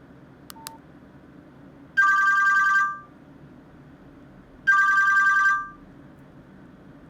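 Nokia 105 mobile phone's speaker playing a high, rapidly warbling electronic ring tone in two bursts of about a second each, a couple of seconds apart. A short key click and beep comes just before the first burst.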